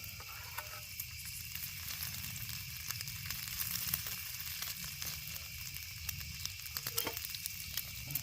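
Bacon frying in its grease, a steady sizzle with small scattered pops.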